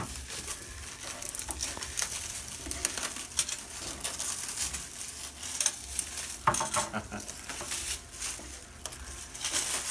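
Plastic stretch wrap and packing plastic crinkling and crackling as they are peeled and pulled off, an irregular run of crackles with a louder rustle about six and a half seconds in.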